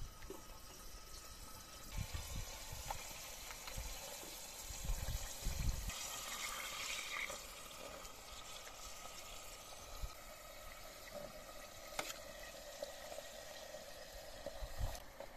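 Liquid bubbling and sloshing in a cooking pot over a wood fire as potato slices and then spoonfuls of rice are laid into it, with a brief louder rush of liquid about six seconds in and a single sharp click near the end.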